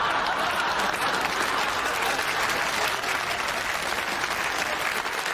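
Studio audience applauding and laughing, a dense, steady wash of clapping.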